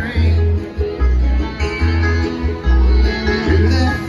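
Live bluegrass band playing through a PA system: picked acoustic guitar and banjo over a heavy, pulsing low bass.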